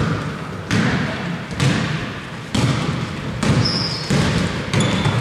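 A basketball dribbled on a hardwood gym floor, steady bounces about once a second, seven in all. A short sneaker squeak sounds about three and a half seconds in.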